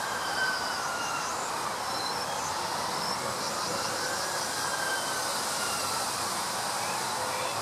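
Wind blowing through the leaves of forest trees: a steady rushing hiss, made washy by crude added reverb. Over it, a tone slowly rises and falls, up and down over a few seconds.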